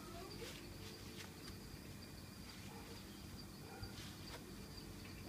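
Faint night ambience: insects chirping in a steady high thin tone over a low steady hum, with a few faint ticks.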